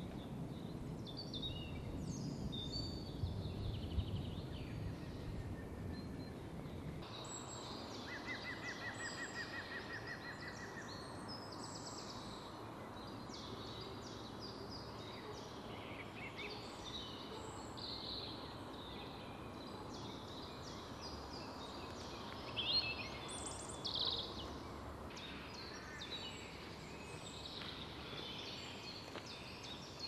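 Woodland birdsong: several small songbirds singing and calling, with a fast trill of repeated notes about eight seconds in. Low rustling, like steps through leaf litter, fills the first several seconds and then stops abruptly.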